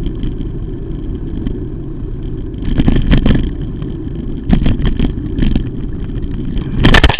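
Steady wind and road rumble on the microphone of a moving vehicle, swelling louder twice. About seven seconds in comes a crash: loud, sudden clattering impacts as it strikes a van and the camera goes down onto the road.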